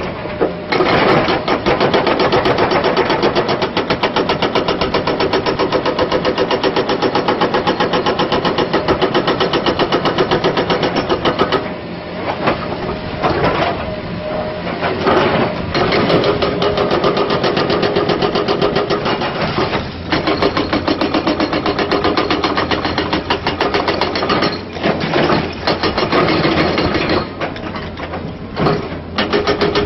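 A Promove XP2400 hydraulic breaker on an excavator hammers limestone in long runs of rapid, evenly spaced blows. It stops briefly several times as the chisel is moved to new rock. The excavator's engine runs steadily underneath.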